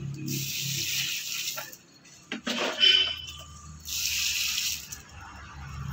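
Water with dissolved fertilizer poured from a plastic dipper onto the soil of a grapevine planter, in two pours of about a second each. Between them, about two and a half seconds in, a short splash and knock, the loudest sound, as the dipper goes back into the plastic bucket.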